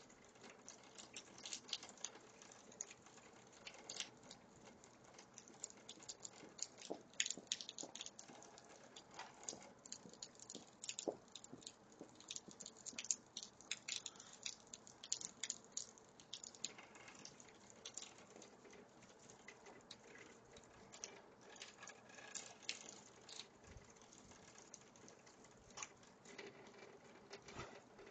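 Faint, irregular pattering of small taps and clicks, close together for the first half and more scattered later.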